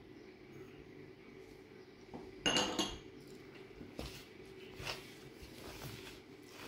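Quiet kitchen handling as yogurt is tipped from a small bowl into gram flour and worked in by hand in a plastic bowl: a short clatter of dishware about two and a half seconds in, and a few light taps later.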